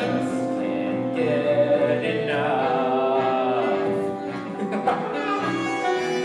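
Musical theatre song: a singer's long held notes over instrumental accompaniment, the pitch shifting a few times.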